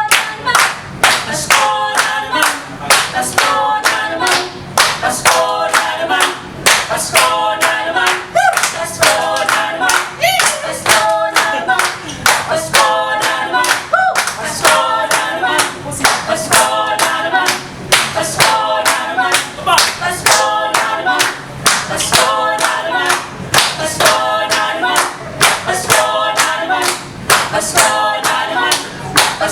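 A cappella choir singing a rhythmic, repeating phrase in close harmony, with hand claps keeping a steady beat of about three a second.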